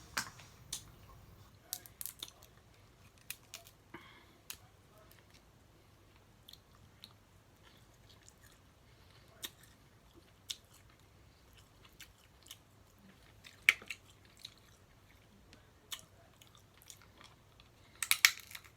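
Close-miked eating of snow crab legs: scattered sharp cracks and clicks of shell being broken, with chewing between. One louder crack comes about two-thirds of the way through, and a quick run of cracks near the end.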